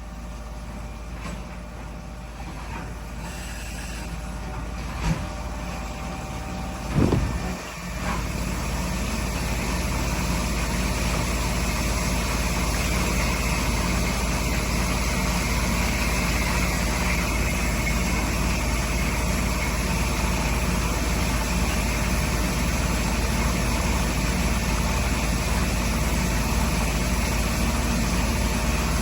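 CNC machining center running during machining, a steady mechanical hum that grows louder over the first several seconds and then holds. Two brief knocks come about five and seven seconds in.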